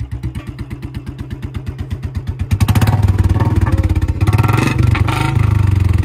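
Royal Enfield Bullet's single-cylinder engine, fitted with a short-bottle silencer, idling with an even thump, then revved hard in several bursts from about two and a half seconds in.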